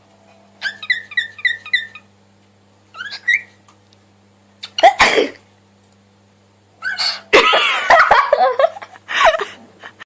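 A cockatiel gives a quick run of about six short chirps and then a single rising whistle. About five seconds in there is one loud, sharp sneeze, followed by a few seconds of laughing over a faint steady electrical hum.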